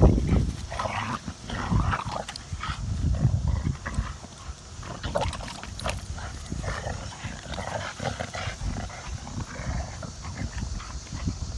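Three bully-breed dogs wrestling and tugging on a rope toy: dog vocal noises mixed with irregular short scuffling sounds.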